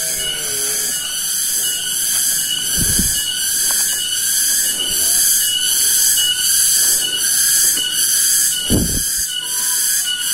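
Cicadas (tonggeret) singing: a loud, shrill, pulsing buzz that rises and falls in a regular rhythm. Two low thumps come about three and nine seconds in.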